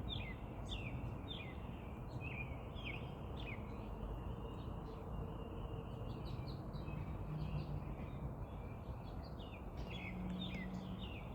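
A bird calling repeatedly: short chirps that fall in pitch, about two a second, over a faint steady background noise.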